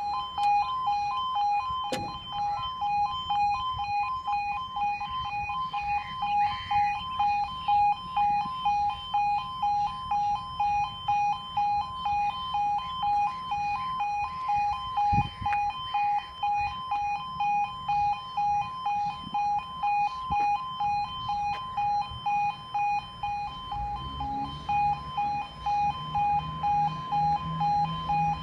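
UK level crossing two-tone 'yodel' alarm sounding continuously, pulsing evenly between two pitches: the warning that the barriers are down and a train is coming. About 24 seconds in, a low steady hum joins as an electric train draws near.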